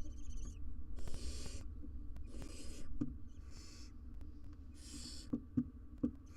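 Barn owls in a nest box giving repeated hissing, snore-like calls, four in a row about a second apart, each lasting about half a second. A few short clicks come near the end, over a steady low hum.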